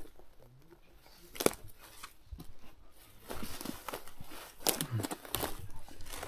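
Irregular rustling and crackling of dry brush and leaves, with sharp cracks about one and a half seconds in and again a little before five seconds in.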